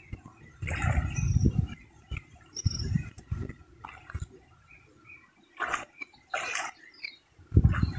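A hooked pacu splashing and thrashing at the water's surface close to the bank, with two sharp splashes about two-thirds of the way through, over intermittent low rumbling.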